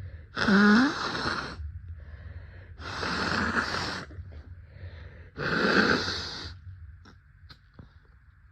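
A person with a congested head cold hitching for a sneeze: three wheezy, gasping breaths roughly two and a half seconds apart, the first voiced with a rising pitch. A few faint clicks follow near the end.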